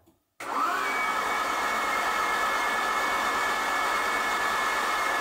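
Starter motor cranking the Citroën XM's 3.0 V6 24V engine with the spark plugs out, so it spins freely without firing: a steady whirring whine that spins up over the first half second, holds evenly, then cuts off suddenly near the end. The cranking turns the belt-driven hydraulic pump and pushes fresh oil through the engine.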